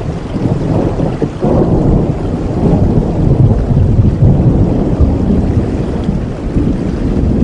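Thunder rumbling low over steady heavy rain, swelling louder about a second and a half in and rolling on.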